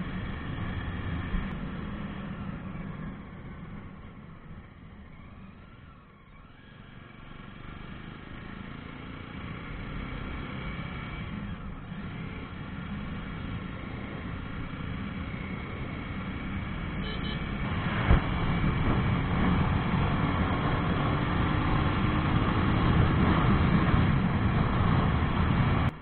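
Jawa 42 motorcycle's single-cylinder engine running on the move. It quietens around six seconds in, then builds steadily louder as the throttle opens again, with one sharp knock about eighteen seconds in.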